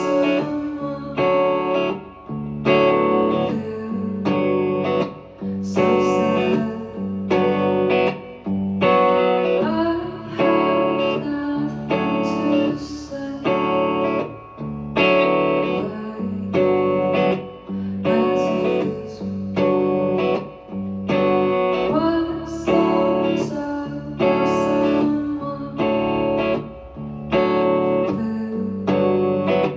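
Live band music, an instrumental passage led by guitar: chords strummed in a steady rhythm, about one strong strum a second.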